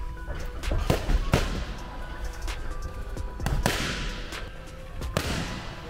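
Strikes landing on a coach's pads: sharp smacks, two in quick succession about a second in, then single ones at about three and a half and five seconds, over background music.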